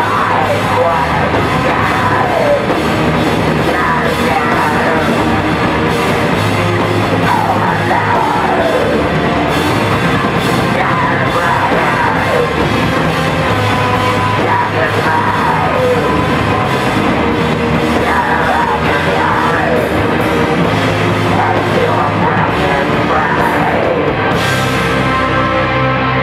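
Live crust punk band playing loud: distorted guitars, bass and pounding drums, with yelled vocals. Near the end the drums and cymbals drop out, leaving the guitar and bass ringing on.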